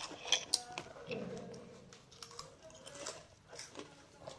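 Short crisp crunches and clicks from puffed corn snacks (Chiki Balls) being handled and chewed, irregular and scattered, with a cluster of sharp clicks near the start.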